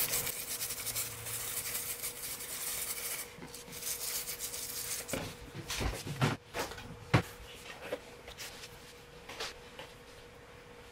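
Toothbrush scrubbing alcohol over a quadcopter power distribution board to clean off solder flux: rapid bristle rubbing for about three seconds, then a few scattered light clicks and knocks once the scrubbing stops. A faint steady hum runs underneath.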